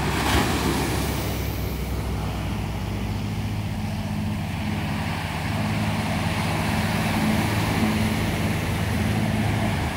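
A fishing boat's Mercedes diesel engine running at full throttle, a steady, deep roar that holds without a break, with the rush of water and wind beneath it.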